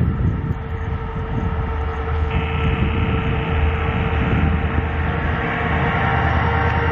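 Twin EMD WDG-4 diesel-electric locomotives' two-stroke 16-cylinder engines working a loaded freight train as it approaches: a deep, steady engine rumble with a steady higher tone over it, higher-pitched tones joining about two seconds in, growing a little louder as the locomotives draw near.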